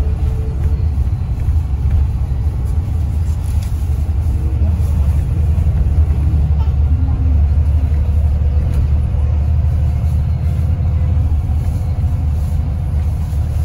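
Steady low rumble of engine and road noise inside the passenger cabin of a moving coach bus.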